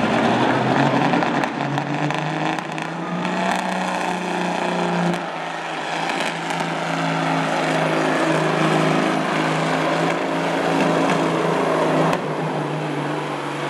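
Semi truck's diesel engine at full throttle under heavy load, dragging a weight-transfer pulling sled. The engine note drops about five seconds in, then holds steady.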